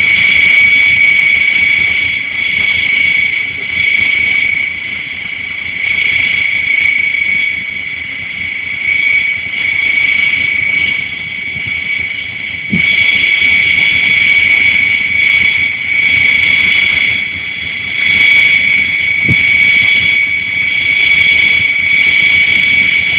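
Steady, loud, high-pitched mechanical whine from a Redut coastal missile launcher standing with its launch container raised, growing a little louder about halfway through.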